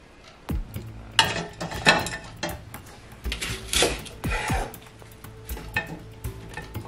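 Duck bones tumbling from a bowl into an empty stainless steel stockpot, with a string of irregular knocks and clatters against the metal, followed by a halved shallot set in among them.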